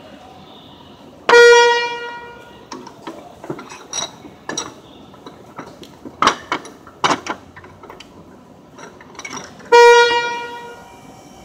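Two loud ringing metallic clangs about eight seconds apart, each on the same pitch and fading over about a second. Between them come a scatter of lighter knocks and clicks of metal on metal, from tools and parts being worked on the car's front suspension.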